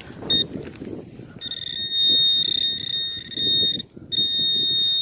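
Metal-detecting pinpointer sounding its alert in the dug hole: a short beep, then a steady high-pitched electronic tone from about a second and a half in, breaking off briefly near four seconds and resuming, over rustling of soil. The continuous tone signals a metal target right at the probe tip.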